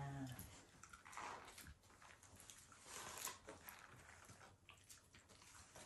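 Faint, irregular crunching and chewing as a dog eats a treat taken from a hand.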